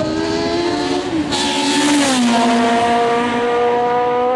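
Shadow DN1 Formula 1 car's Ford Cosworth DFV V8 running at high revs. Its pitch drops about two seconds in, with a short rush of noise, then holds steady at a lower pitch.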